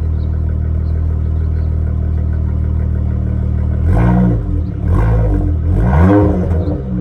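Dodge Charger SXT's V6 exhaust through Flowmaster Super 10 mufflers, idling steadily, then revved in three quick blips starting about four seconds in, each rising and dropping back.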